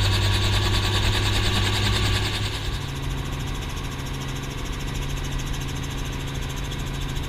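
Small helicopter's engine and rotor running steadily at lift-off, heard from inside the doors-off cabin. About three seconds in, the low hum shifts slightly higher and the hiss above it eases.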